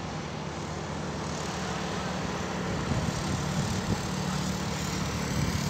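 Vehicle engine running steadily on a mountain road, its hum getting a little louder toward the end.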